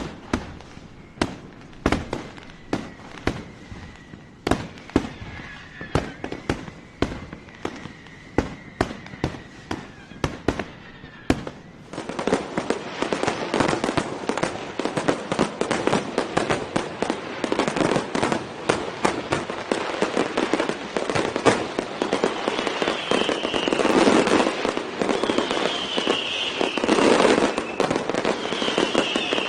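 Fireworks going off: separate sharp bangs about every half to three-quarters of a second. About twelve seconds in, they give way to a dense, continuous barrage of bangs and crackling.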